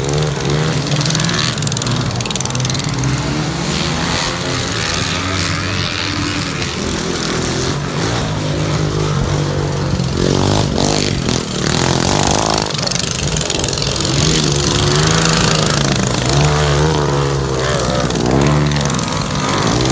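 Several racing ride-on lawn mower engines running hard together, their pitch rising and falling as they accelerate and pass.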